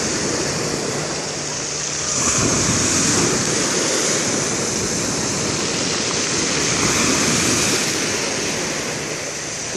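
Sea surf washing onto the shore, a steady rush that swells twice as waves come in.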